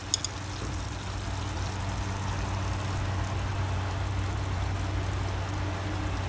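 Steady low hum of an induction cooktop running under a frying pan, with a faint sizzle from the pan. Two light clicks of wooden chopsticks against the pan or plate just after the start.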